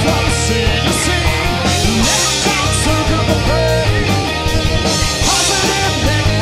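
A heavy metal band playing live: electric guitars over a heavy bass line and a drum kit with cymbals, loud and dense throughout.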